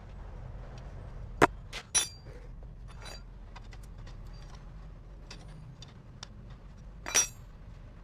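A few sharp metallic clinks of small tools or metal parts being handled and set down: three close together about a second and a half in, and one more near the end, some with a brief ring.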